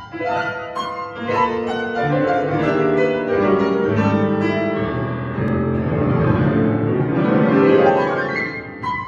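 Solo piano playing a flowing classical passage of sustained notes and chords, dipping into the bass around the middle and climbing higher near the end.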